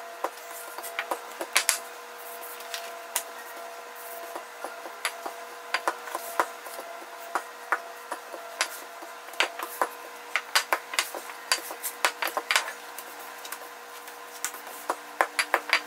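Wooden rolling pin rolling out puff pastry dough on a Teflon baking sheet: rapid, irregular wooden clicks and knocks with rubbing, over a faint steady hum.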